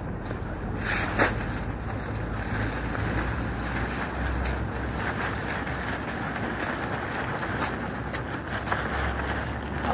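Steady wind buffeting the microphone, a rumbling noise, with a couple of light clicks about a second in.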